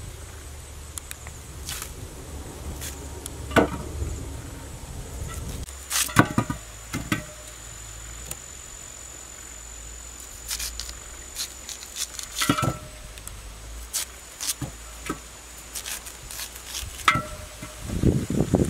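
A knife chops chunks off a raw purple yam and the pieces drop into a clay pot, making irregular sharp cuts and knocks about a dozen times. An insect trills steadily on one high note behind them.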